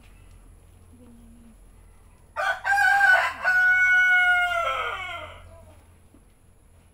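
A rooster crowing once, starting about two and a half seconds in: a loud, choppy opening, then a held call that falls in pitch as it fades.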